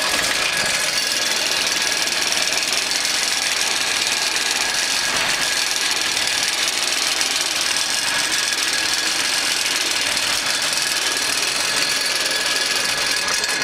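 Kubota B7200's three-cylinder diesel engine running steadily just after being started.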